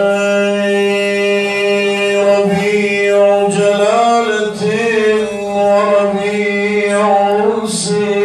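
A man's solo voice chanting an Islamic inshad unaccompanied, one long held phrase with melismatic turns in the pitch.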